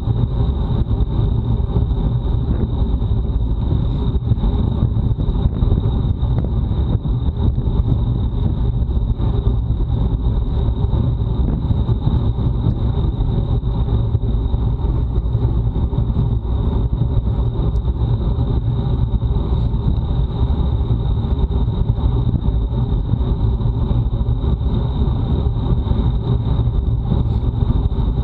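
Wind rushing over and buffeting an action camera's microphone on a road bicycle at race speed, a loud steady low rumble with no let-up. A thin, steady high whine sits over it.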